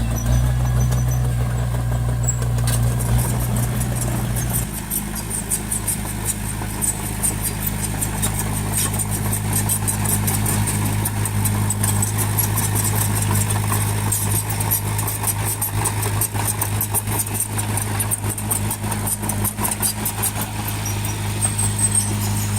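Bulldozer's diesel engine running steadily, its note dropping a little about four and a half seconds in, with fast light clicking over it.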